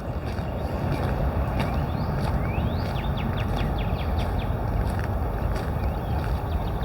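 Steady low rumble of wind buffeting the microphone outdoors, with a bird giving a few rising calls about two seconds in, followed by a fast run of short high notes.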